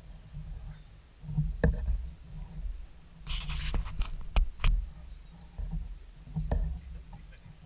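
Wind rumbling on the camera's microphone, with a few sharp knocks and a short scraping rustle about halfway through, like the camera being handled.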